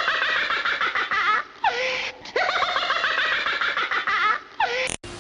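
A laugh played twice as an intro sound effect: each time a fast run of laughing syllables that ends in a falling, sliding note held briefly, with a short gap between the two.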